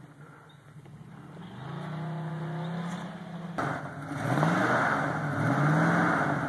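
A truck's engine running, then revving up twice as it accelerates hard over loose dirt, with a loud hiss of tyres spinning and spraying dirt.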